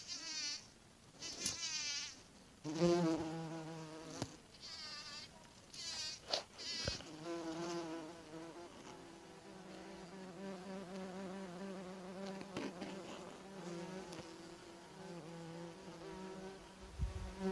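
A bumblebee buzzing steadily while it forages in a flower, starting about three seconds in. Several short, high, trilling chirps come in the first few seconds.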